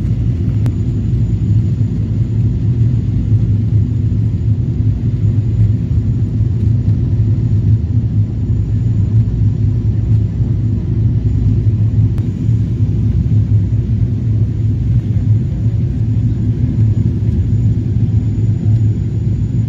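Passenger aircraft in flight heard from inside the cabin: a steady, even low rumble of engine and airflow noise.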